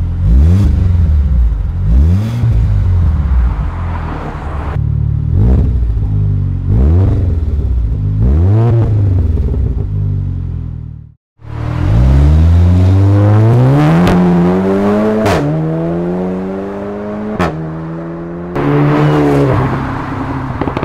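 Volkswagen Golf 7 GTI's turbocharged 2.0-litre four-cylinder, breathing through an ARMYTRIX valved cat-back exhaust, is blipped repeatedly from idle in short revs, first with the exhaust valves closed and then open. After a brief break, the engine pulls hard with rising revs that drop suddenly at each upshift, with sharp exhaust cracks on the shifts.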